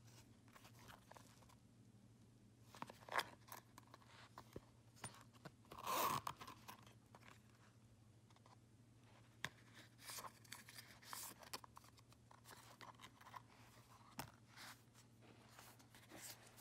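Louis Vuitton Zippy Organizer in Damier Graphite canvas being handled: scattered small clicks and rustles of its leather and canvas compartments and zip, with one louder scraping rustle about six seconds in. A faint steady low hum runs underneath.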